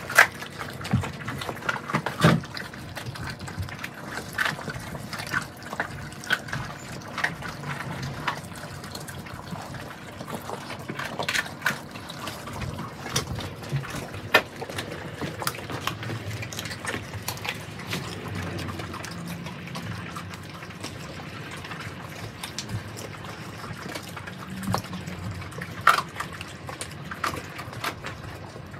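Several mastiff puppies eating raw turkey, bones and all: wet smacking and chewing broken by irregular sharp crunches of bone, with the loudest cracks near the start, around halfway and near the end.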